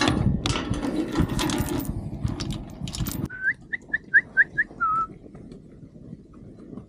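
Noisy clattering with many sharp clicks that cuts off suddenly about three seconds in. Then comes a quick run of six short, rising whistled notes and one longer, lower whistle.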